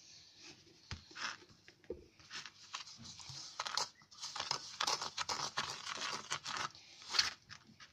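Plastic spoon stirring and scraping kinetic sand mixed with white glue in a plastic bowl: quick, irregular scraping strokes that come thicker and faster from about halfway through.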